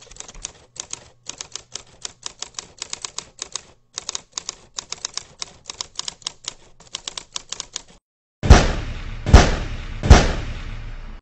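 Typewriter keys clacking in quick, irregular runs for about eight seconds. Then come three loud booms less than a second apart, each trailing off in a rumble.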